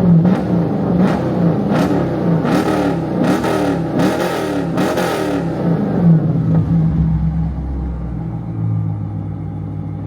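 Dodge Scat Pack's 6.4-litre HEMI V8 blipped about eight times in quick succession, a little over once a second, then settling back to a steady idle. This is the engine whose bad tick the owner takes for a failing lifter.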